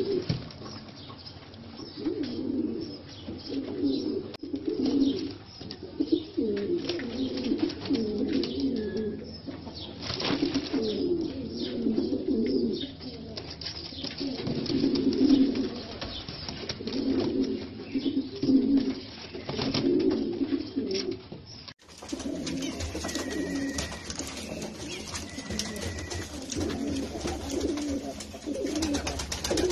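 American fantail pigeons cooing in repeated low bouts, the cooing of a puffed-up male displaying to a hen.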